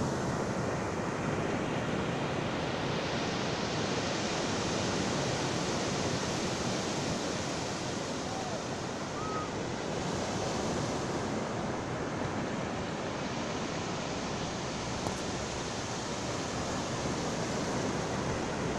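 Sea waves breaking and washing onto the shore: a steady rushing surf.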